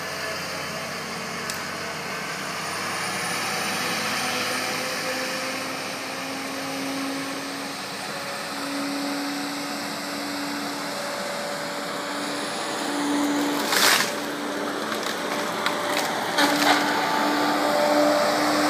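Tracked feller buncher's diesel engine running steadily under working load, its pitch drifting up and down. A loud crack of wood about fourteen seconds in, followed by a few sharper snaps, as a tree is broken and brought down.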